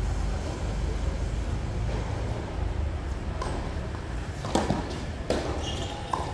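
About four sharp knocks of a tennis ball off racket strings and court in the second half, the loudest about halfway through, over a steady low rumble.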